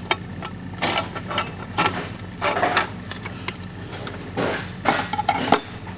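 New steel clutch plates clinking and scraping against each other and the aluminium transmission case as they are slid into a Chrysler 42RLE's low-reverse clutch pack: a handful of light metallic clinks spread out, without rhythm.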